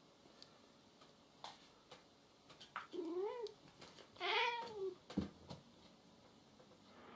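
A cat gives two drawn-out, wavering meows a second apart, the second one louder, followed by a soft thump.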